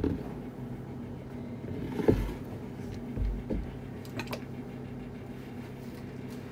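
A low, steady hum, with a few soft knocks and thumps about two, three and four seconds in.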